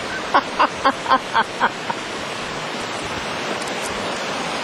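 Steady rushing of wind and water. In the first two seconds, a quick run of about seven short pitched pulses, about four a second, stands out above it.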